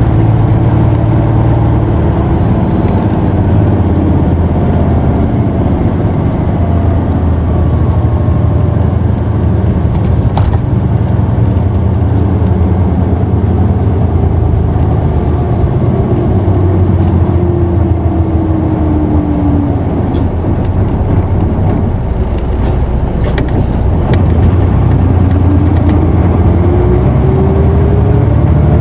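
Diesel engine of an Isuzu Erga city bus (PKG-KV234L2) running under way, heard from inside the cabin. Its note sinks slowly through the middle, then climbs over the last few seconds as the bus accelerates. A few short rattles or clicks come about two-thirds of the way through.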